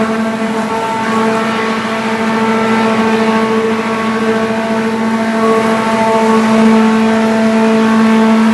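Wood-waste grinder that turns logs and forest waste into sawdust, running with a loud, steady mechanical hum at a constant pitch.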